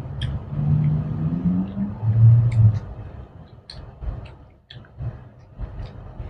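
Close-up eating sounds from people eating rice and fried chicken with their fingers: scattered sharp smacks and chewing clicks. Under them is a low hum in the first few seconds that rises slightly in pitch before ending in a brief, louder low tone.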